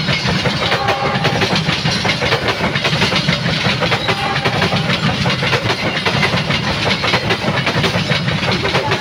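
Passenger coaches of the KA Brawijaya train rolling past close by: a steady rumble of steel wheels on the rails with rapid, dense clicking from the wheels over rail joints.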